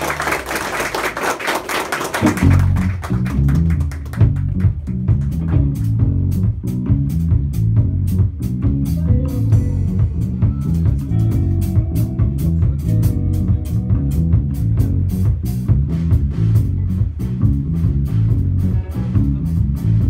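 Clapping for about two seconds, then an instrumental rock trio starts playing live: electric bass guitar notes leading, with electric guitar lines over a drum kit keeping a steady beat.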